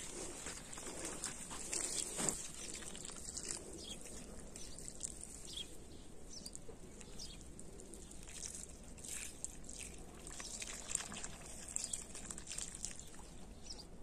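Water running from a garden hose into a flooded planting basin in soil, trickling and splashing with many small irregular splashes.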